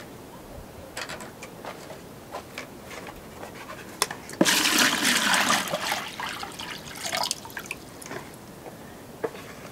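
Water poured from a plastic bucket into an enamel pot: a loud sudden gush about four seconds in that lasts a second or two, then smaller splashes and dribbles. Scattered knocks and rustles of the bucket being handled come before it.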